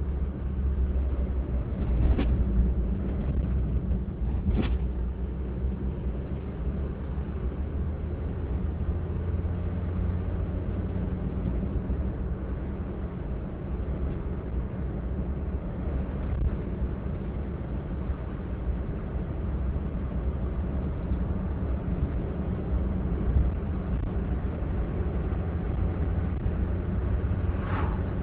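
Car driving, heard from inside the cabin: a steady low engine and road rumble. A few brief knocks or clicks break in, about two and five seconds in and again near the end.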